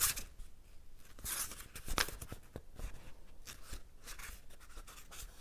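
Pages of a paperback book being leafed through by hand: a series of short paper rustles and flicks, with one sharper flick about two seconds in.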